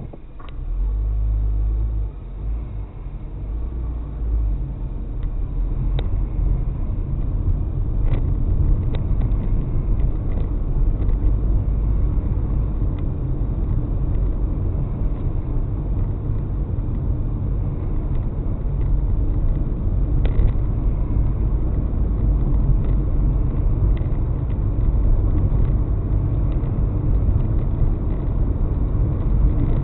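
Car driving on city roads, heard from a vehicle-mounted camera: a steady low rumble of engine and tyres that comes in suddenly and grows a little louder over the first few seconds, with a few faint clicks.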